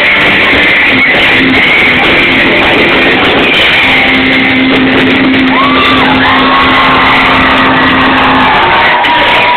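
Rock band playing live on electric guitars and drums, very loud throughout. A long low note is held for several seconds in the middle.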